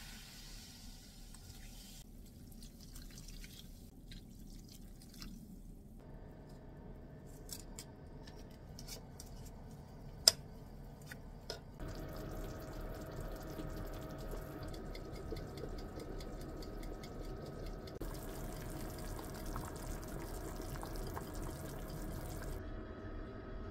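Kitchen cooking sounds from a pot of pork, leeks and onion in cola: the cola dripping and fizzing in the pot, a few sharp clicks with one loud click about ten seconds in, then the pot boiling with a faint steady tone underneath.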